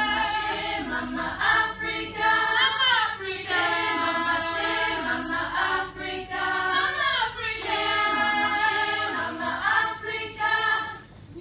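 Youth choir of children's and teenage voices singing a cappella in several parts, holding chords with sliding phrases between them; the singing drops away just before the end.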